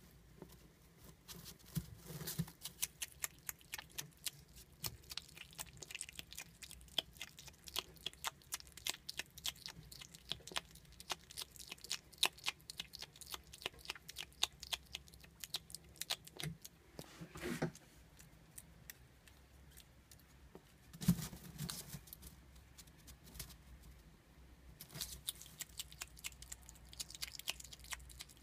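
Common tenrec chewing and crunching its food, a steady run of many quick clicks, with a couple of louder bumps about two-thirds of the way through.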